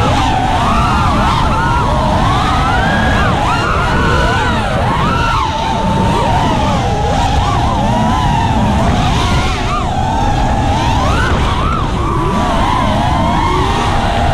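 Racing quadcopters' electric motors whining, several at once, their pitch gliding up and down constantly with the throttle, over a steady low rush of noise.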